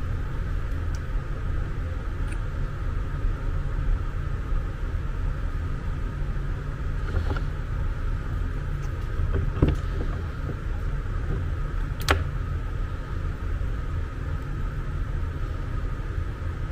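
Steady low background rumble, with a few light clicks and knocks of hard plastic parts being handled, the sharpest about twelve seconds in.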